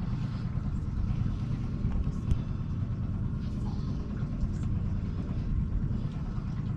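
Mercury outboard motor running steadily at slow trolling speed, a continuous low rumble, with a single sharp knock a little over two seconds in.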